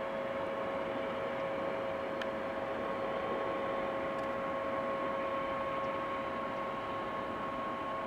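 Steady jet whine over a constant rushing noise, typical of aircraft engines running around an airfield. A few high tones hold the same pitch throughout, with no surge or change in level.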